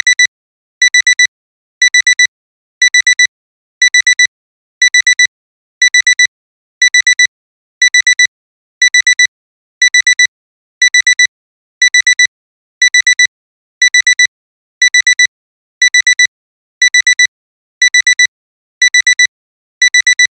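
Alarm clock alarm beeping after the countdown timer has run out: quick groups of four short, high-pitched beeps, one group about every second, repeating steadily.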